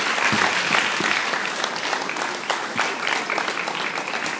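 Audience applauding: many hands clapping together, easing off a little toward the end.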